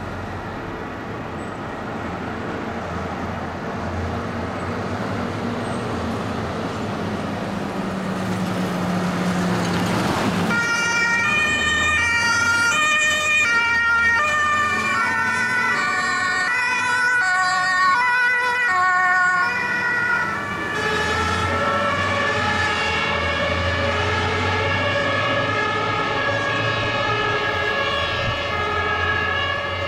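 Heavy vehicle engines and traffic noise growing louder, then about a third of the way in, German two-tone fire-engine sirens (Martinshorn) start up. Several horns sound at once, each stepping back and forth between a high and a low note, as fire vehicles pass on an emergency run.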